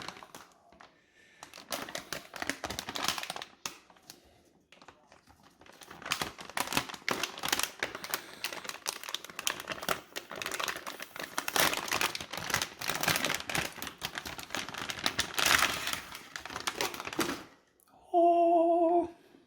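Plastic packaging crinkling and rustling in quick, irregular crackles as a graphics card is unwrapped. Near the end a short, loud, steady tone sounds for about a second.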